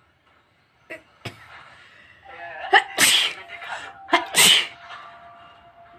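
A woman sneezing twice, about three seconds and four and a half seconds in, each sneeze led by a short voiced catch of breath. The sneezes are forced by tickling the inside of her nose with a broom straw.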